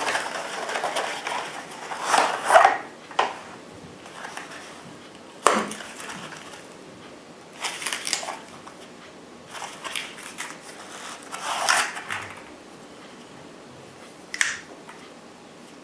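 Packaging and a lockback folding knife being handled: irregular bursts of rustling and scraping, with a few sharp clicks in between.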